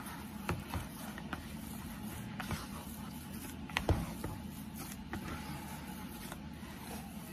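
Hands kneading soft, watery corn masa dough in a plastic bowl: squishing and pressing with scattered short knocks of hand against bowl, the loudest a pair about four seconds in.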